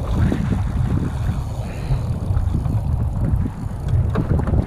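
Wind buffeting the microphone, a loud gusty low rumble.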